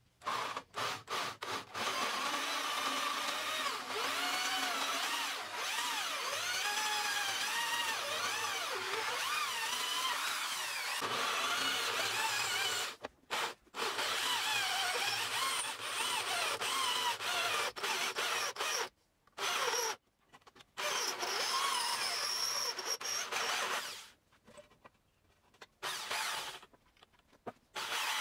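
Drill press boring into a round metal bar held in a vise: a steady motor whir with a wavering whine from the bit cutting metal. It breaks off abruptly several times.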